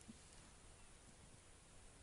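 Near silence: faint low outdoor background noise, with a soft low thump right at the start.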